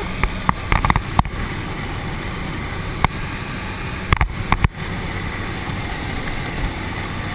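Steady drone of a jump plane's engine and propeller heard inside the cabin, with several sharp knocks near the start, about three seconds in and a little past four seconds.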